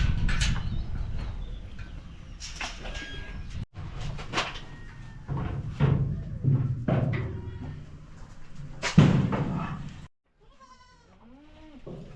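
Goats bleating, a string of short calls over a steady low rumble, the loudest about nine seconds in. Near the end, in a quieter stretch, comes a single wavering call.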